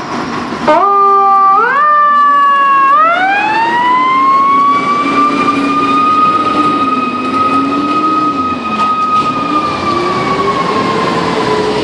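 FDNY fire engine's siren starting up suddenly with a few short rising sweeps. It then glides up into a long wail that holds steady and slowly falls near the end, with a lower wavering tone underneath.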